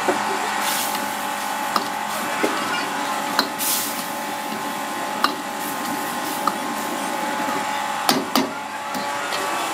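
Steady roar of a gas wok burner under a simmering curry, with scattered sharp clinks of a steel ladle against the wok.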